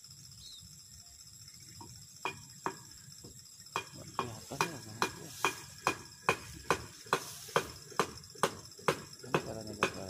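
A run of sharp, evenly spaced clicks: a few from about two seconds in, then a steady two or so a second until near the end.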